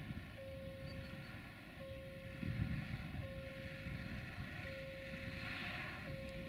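Low rumble of an approaching 060-DA (LDE2100) Sulzer diesel-electric locomotive hauling a freight train, swelling about two and a half seconds in. Over it, a steady electronic beep repeats about once every second and a half.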